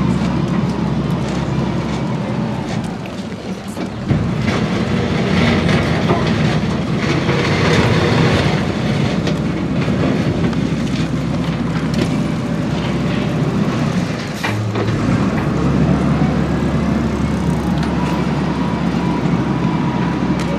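Heavy diesel machinery running steadily with a low engine hum. The hum drops back about two seconds in and picks up again near four seconds, then dips once more past the middle. Scattered clanks and clicks sound over it.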